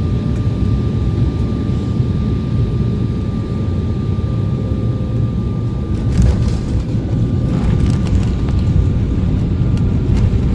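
Airliner cabin noise during landing: a steady low rumble of engines and airflow with a faint steady whine over it. About six seconds in, a stretch of rattling and clatter joins in.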